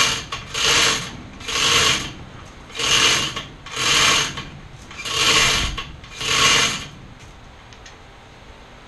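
A ratcheting metal mechanism worked in seven strokes about a second apart, each a rasping ratchet run, stopping about seven seconds in.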